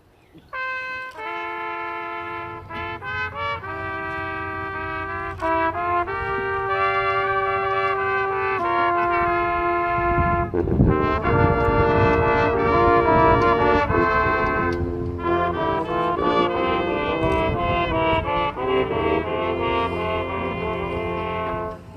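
Marching band brass playing held chords that shift every second or so, coming in about half a second in. From about ten seconds in the full band joins with low notes and hits, louder and fuller.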